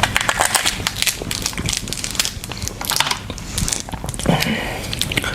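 A cooked crab's shell being cracked and broken apart by hand: a run of sharp cracks and crunches, with bunches of snaps near the start and again midway.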